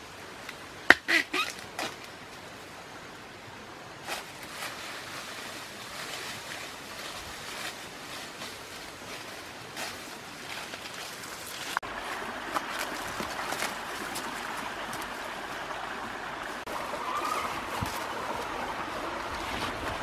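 A few sharp cracks about a second in as a bamboo shoot is snapped off at its base by hand, followed by scattered rustling and crackling in dry bamboo leaf litter.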